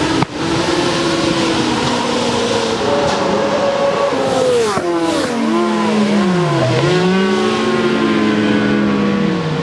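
Several racing motorcycle engines revving out of sight, their pitch climbing and dropping through gear changes and braking, one note swooping down and back up about two-thirds of the way through. A sharp click just after the start.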